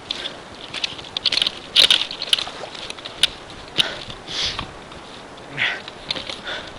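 Scattered sharp clicks and rustling of someone moving on foot close to the microphone, with a few short breathy sniffs.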